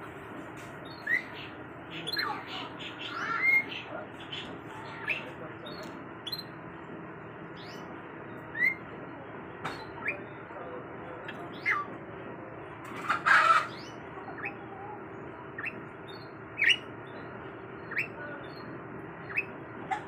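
Caged domestic canary giving short, falling chirps at irregular intervals, with a louder burst of notes about two-thirds of the way through.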